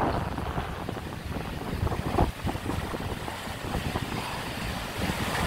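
Gusty wind buffeting the microphone over the wash of surf breaking onto a sandy beach, with one stronger gust about two seconds in.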